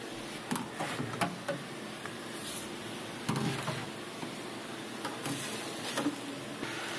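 A hose nozzle knocking and scraping against a sheet-metal pocket, with scattered light knocks over a faint steady hiss.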